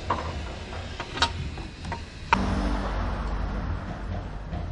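Parts and tools being handled under a car during engine-mount removal: a few sharp metallic clicks and knocks over a steady low workshop hum.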